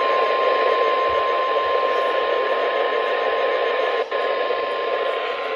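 NOAA Weather Radio warning alarm tone: a single steady 1050 Hz tone over a hiss of radio static, briefly dropping out about four seconds in. The tone signals that a warning, here a flash flood warning, is about to be read.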